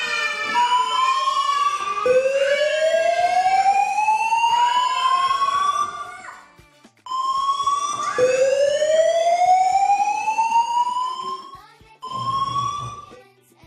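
Fire siren sound effect: two long rising wails, each climbing for about four seconds and cutting off abruptly, with a shorter wail near the end, signalling a fire emergency.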